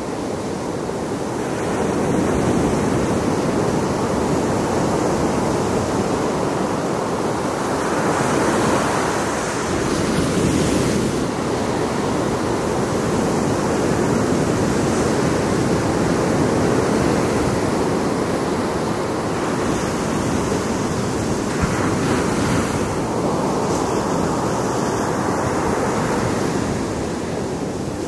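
Ocean surf breaking and washing up a sandy beach: a steady rush of water that swells and eases every several seconds.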